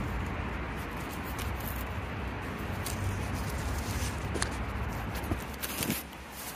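A fox nosing at a phone lying on the ground, right up against its microphone: close rustling with a few scattered taps and clicks as it touches the phone.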